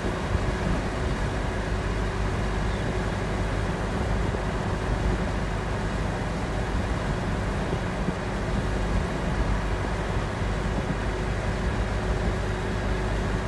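Steady road and engine noise from inside a moving car, a constant low rumble with a faint steady hum.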